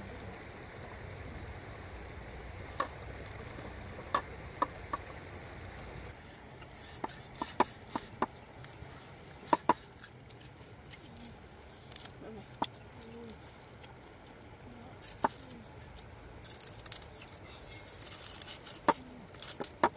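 A dozen or so sharp, unevenly spaced knocks and clicks of a cleaver cutting roasted pork skin and striking the clay plate beneath it. A steady low rush underneath cuts off about six seconds in.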